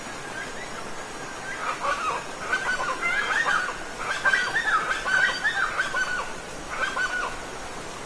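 Birds calling in quick, chattering clusters over the steady rush of a waterfall, the calls busiest and loudest in the middle.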